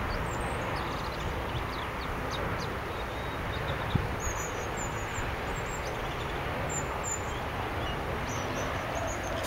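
Small birds chirping in short high calls over a steady rushing background noise, with a single soft knock about four seconds in.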